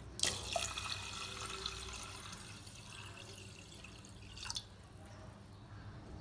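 Water poured from a steel vessel into a stainless steel pressure cooker onto rice and moong dal, splashing steadily for about four seconds after a sudden start. A short knock comes as the pouring ends.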